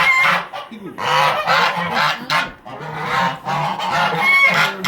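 Farm poultry calling loudly: a run of harsh, honking calls, one after another.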